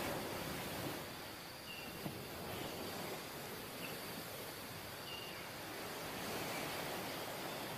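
Sea surf washing up a sandy beach, a steady rush of noise, with a few brief high chirps over it.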